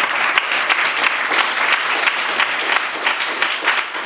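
Audience applauding, many hands clapping steadily at the end of a reading.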